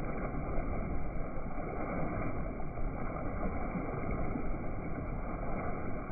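Steady rushing noise aboard a moving boat, from wind on the microphone and water along the hull.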